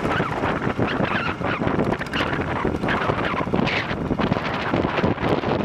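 Wind buffeting the microphone aboard a moving wooden boat, a gusty, uneven rush over the noise of the boat.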